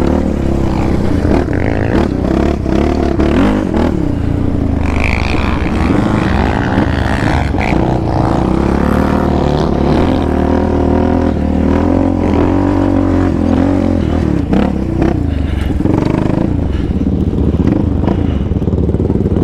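Yamaha Raptor 700R sport quad's single-cylinder engine running under load as it is ridden over sand, revs rising and falling through the gears, with short knocks and rattles from the chassis over bumps.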